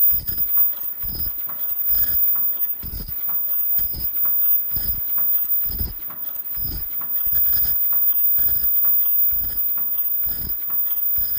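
Automatic disposable face-mask making machine running: a regular cycle of low thumps, about one a second, each with a sharp click from its pressing heads and feed mechanism, over a steady mechanical clatter.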